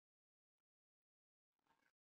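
Near silence, with a very faint short noise about one and a half seconds in.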